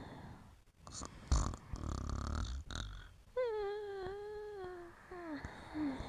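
A sleeping dog dreaming: a noisy snoring breath in the first half, then a long, slightly falling whimpering whine about halfway through, followed by two short, high whimpers near the end.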